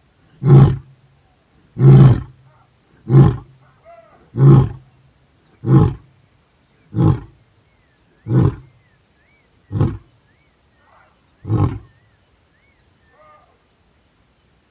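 Lion ending a roaring bout with a run of about nine short, deep grunts, spaced a little further apart and growing fainter as the series goes on.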